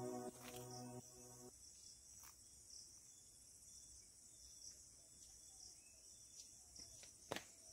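Background music ends about a second and a half in, leaving a faint, steady high chirring of crickets, with a sharp click near the end.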